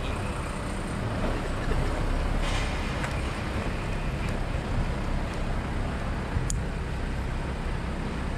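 Steady outdoor background rumble and hiss, heaviest in the low end, with one sharp click about six and a half seconds in.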